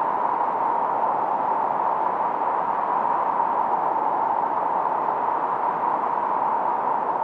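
1972 Minimoog synthesizer's noise generator played through its filter: a steady, unbroken hiss with the highs rolled off and a brighter band in the middle of the range that gives it a faint tone.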